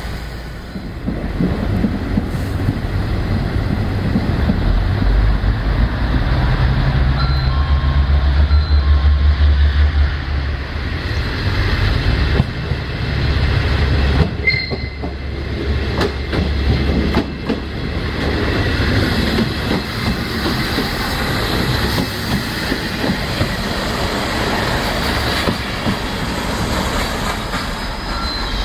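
JR Tokai KiHa 40-series diesel railcar moving along the track, its diesel engine running, loudest about a third of the way through. Wheels clatter over rail joints and squeal on the rails.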